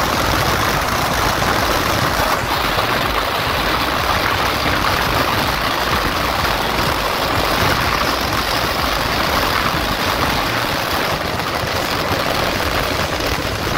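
Bajaj Pulsar 220F motorcycle being ridden, its single-cylinder engine running steadily under a constant rush of wind on the microphone.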